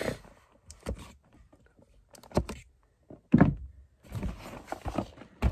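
A box cutter slicing through packing tape on a cardboard box, with scraping and scattered cardboard knocks. The loudest sound is a dull thump about three and a half seconds in.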